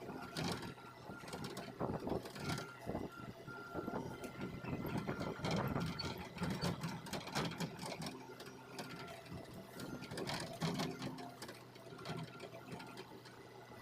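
Hitachi Zaxis hydraulic excavator at work: the engine runs steadily under many irregular clanks and knocks, with a thin whine that comes and goes.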